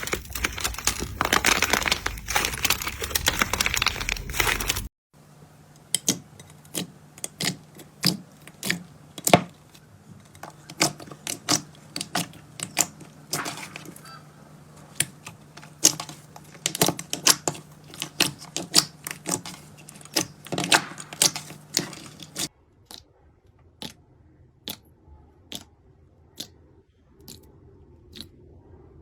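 Slime being squeezed and worked by hand: a dense crackling crunch at first, then, after a cut, a run of sharp clicks and pops. After a second cut the clicks go on quieter and sparser.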